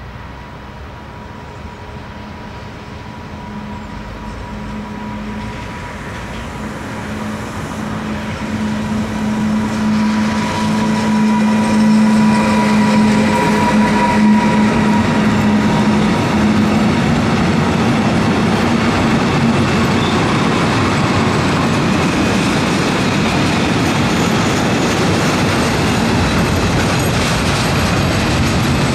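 A freight train hauled by a DB Class 189 electric locomotive approaching and passing close by: a steady electric hum from the locomotive grows louder as it nears, then the loaded tank wagons roll past with a loud, steady noise of wheels on rails.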